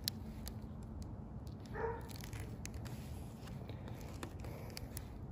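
Faint handling of a plastic window sign and its wrapper: a few light clicks and crinkles over low outdoor background noise, with one brief pitched cry about two seconds in.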